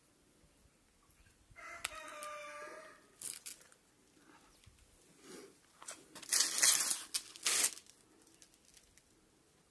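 A rooster crows once, a pitched call lasting about a second, starting about a second and a half in. Later come a few short bursts of rustling noise, the loudest sounds here, around six to eight seconds in.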